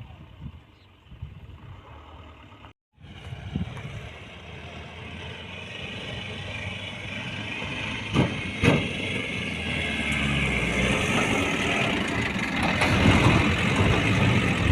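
A Mahindra off-roader's diesel engine running under load, growing steadily louder as the vehicle comes closer, with two short knocks about eight seconds in.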